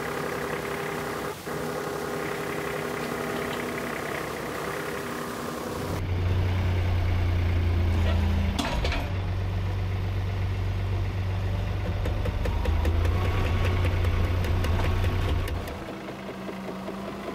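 John Deere compact diesel tractor running steadily while pulling a laser-controlled box blade through dirt. The engine is louder and deeper from about six seconds to sixteen seconds in, with scattered knocks from the blade banging as it cuts.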